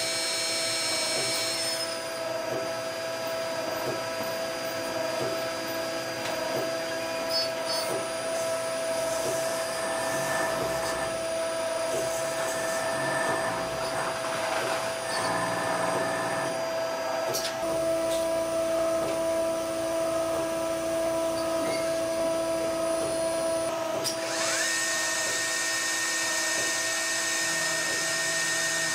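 CNC lathe running and cutting metal: a steady high whine of spindles and drives over the hiss of cutting. The pitch of the whine shifts several times as the machine changes operation.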